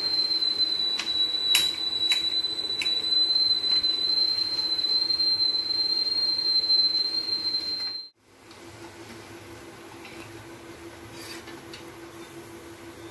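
Knife chopping Indian borage leaves and small onions on a glass cutting board: a few sharp taps in the first few seconds, over a loud, steady, high whistling tone. About eight seconds in, the tone and chopping cut off abruptly to a quieter steady hum.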